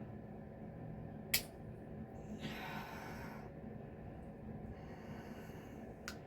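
Scissors prying at the plastic centre of a shower head: a sharp click about a second and a half in and another just before the end, with a breath out in between.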